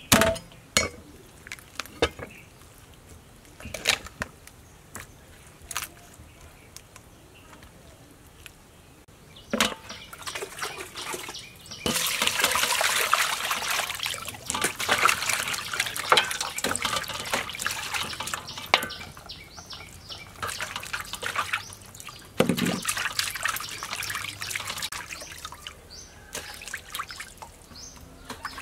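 Water sloshing and splashing as raw chicken pieces are washed by hand in a metal pot, starting about a third of the way in and easing off toward the end. Before it, a few scattered knocks and taps.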